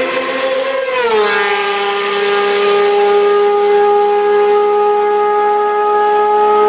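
An engine held at high revs with a steady, whining pitch. The pitch drops about a second in, then holds level.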